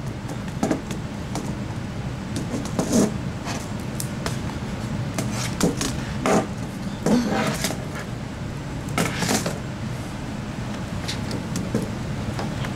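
Scattered light clicks and knocks of a hand handling a loose laptop keyboard and its plastic casing, over a steady low background hum.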